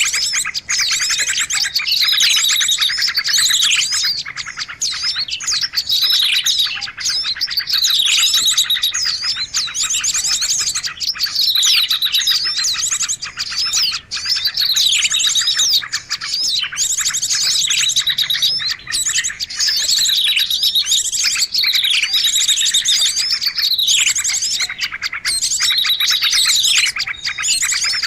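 Songbird song: fast, continuous chirps and trills. Downward-sliding whistled notes recur about every two seconds.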